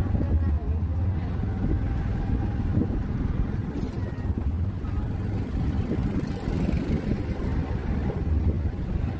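Motorbike engine running steadily at low speed, heard from the rider's seat with road and wind noise, and one brief click about four seconds in.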